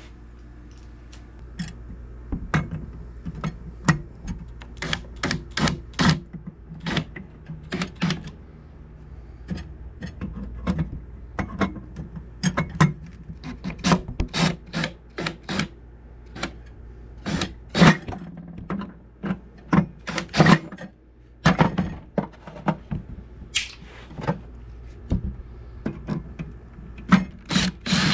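Irregular sharp clicks, knocks and clatter of screws and plastic parts of a spiral gumball machine being handled while the screws of its plastic catch tray are taken out with a screw gun.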